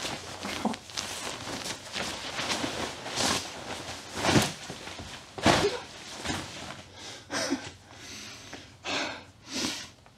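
Rustling and swishing of a nylon hooded rain jacket being pulled off, a run of irregular fabric swishes with a few louder ones midway.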